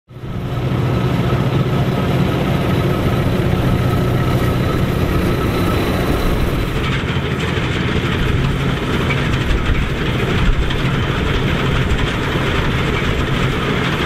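Massey Ferguson 87 combine harvester running steadily while cutting and threshing barley: a constant engine hum mixed with the noise of the header and threshing machinery working.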